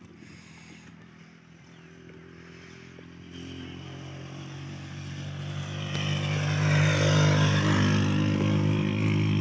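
A vehicle engine running steadily, growing louder over several seconds as it draws near, loudest from about two-thirds of the way through.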